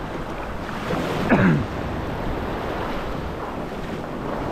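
Small beach surf washing and breaking around the camera in shallow water, with wind buffeting the microphone. About a second in there is a brief falling shout from a man.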